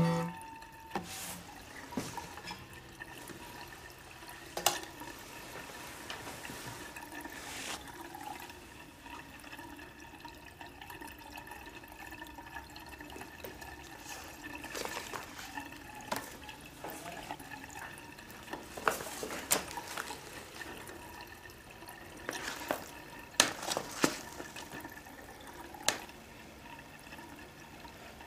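Magazines and papers being pulled from under a bed and handled: scattered light knocks, clicks and rustles over quiet room tone, coming in small clusters.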